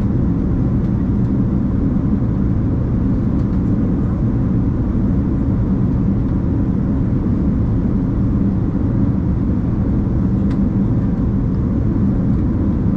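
Steady low rumble of cabin noise inside a Boeing 747-8 airliner, engine and airflow noise with no changes in level.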